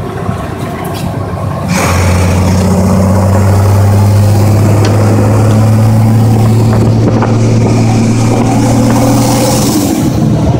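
Semi truck's diesel engine running at a steady speed under way, a loud low drone heard from inside the cab together with road and wind noise, which gets louder about two seconds in and then holds steady.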